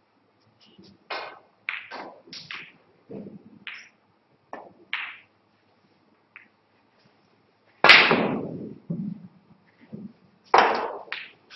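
Snooker shot: the cue tip strikes the cue ball with a sharp click, the loudest sound. About two and a half seconds later a second loud knock comes as the cue ball strikes on the table. Lighter taps and knocks come before the shot.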